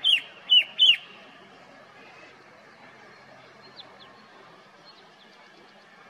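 Male Himalayan shrike-babbler (the western Himalayan red-winged shrike-babbler) calling: three loud, sharp notes in quick succession in the first second, each sweeping downward in pitch. A few faint chirps follow later on.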